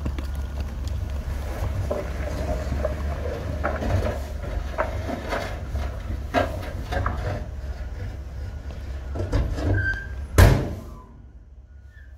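Dump truck's diesel engine running with a steady low rumble while soil and rocks slide and knock out of the tipped bed. A single loud bang comes about ten seconds in, after which the engine noise drops away.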